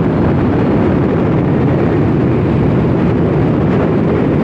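Steady, loud wind rumble over the microphone mixed with the running noise of a Benelli motorcycle riding at road speed.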